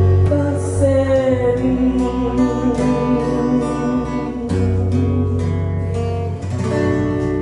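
Live band playing a slow pop ballad in a 16-beat arrangement: acoustic-electric guitar and electric bass, with a woman singing.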